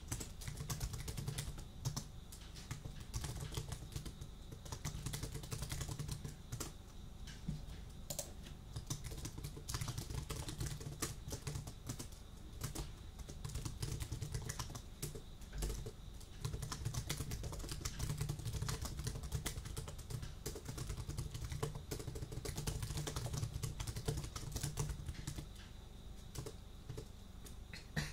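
Computer keyboard being typed on continuously, a dense, irregular run of key clicks, with a steady low hum underneath.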